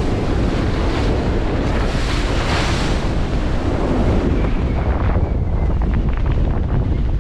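Wind buffeting the microphone over the rush and hiss of waves breaking along the hull of a sailing yacht heeled over in rough sea. The water hiss swells now and then.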